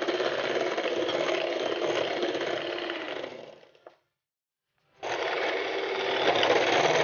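Electric hand mixer running steadily, its beaters churning through whipping cream and condensed milk in a glass bowl. The motor fades out about three and a half seconds in, falls completely silent for about a second, then starts running again.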